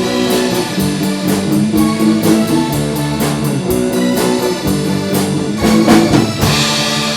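Live rock band playing an instrumental passage: guitar chords over a drum kit, with a loud full-band hit about six seconds in.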